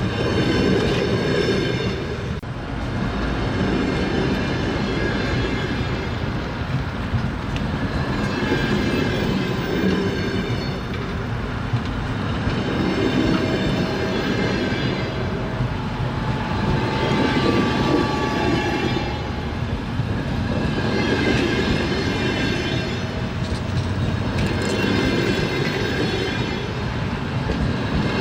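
Train wheels running over the rails with a continuous rumble and clatter. High ringing tones from the wheels swell and fade every few seconds.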